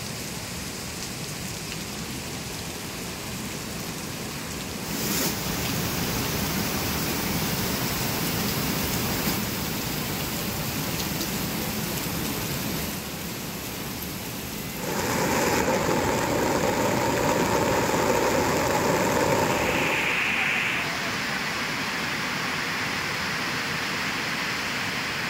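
Heavy monsoon rain and rushing water, a steady rushing noise that shifts abruptly in loudness and tone several times, and is louder and fuller for a few seconds past the middle.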